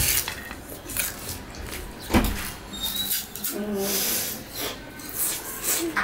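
Sugarcane stalks being bitten, stripped and chewed: repeated crunching and ripping of the tough fibrous cane, with a sharp crack about two seconds in.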